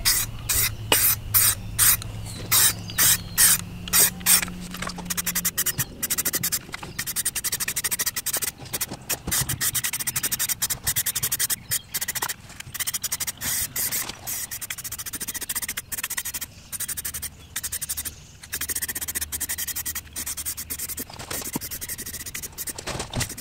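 Rust-Oleum 2X Ultra Cover spray paint can hissing as paint is sprayed onto a steel wheel rim. About two short bursts a second at first, then longer, near-continuous spraying broken by brief pauses.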